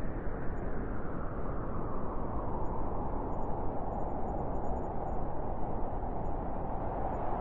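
Steady rushing wind, a deep even noise without gusts or breaks; its brighter upper part sinks a little around the middle and comes back near the end.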